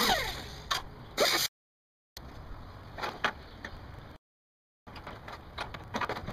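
Knocks, clanks and scraping from rotted wood framing being pulled out of an old steel car cab, opening with a loud creaking screech that falls in pitch. The sound cuts out to dead silence twice.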